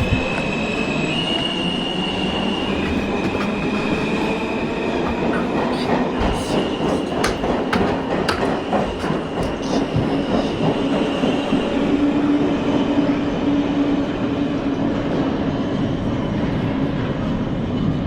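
NYC subway train running through the station, its steel wheels squealing on the rails in long, high held tones, with clicks and clatter from the track over a steady rumble.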